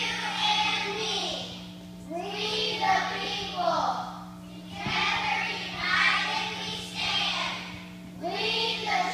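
A group of children singing together in phrases of about two seconds with short breaths between them, over a steady low electrical hum.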